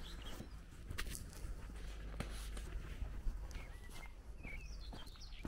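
Footsteps on a gravel and dirt lane, with small birds chirping, mostly in the last couple of seconds.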